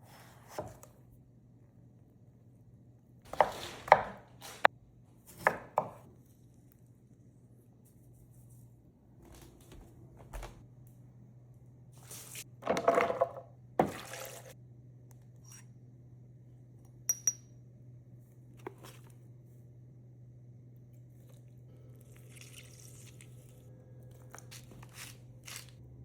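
Kitchen utensils and dishes knocking and clattering in scattered bursts during cooking prep, loudest about four seconds in and again near the middle, with two quick ticks a few seconds later, over a steady low hum.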